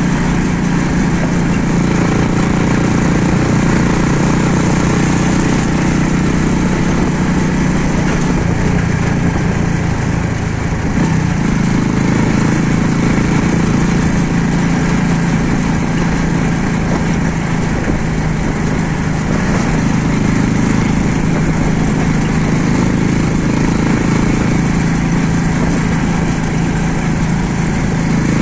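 Small engine of a moving road vehicle running steadily, heard from on board, with road and wind noise.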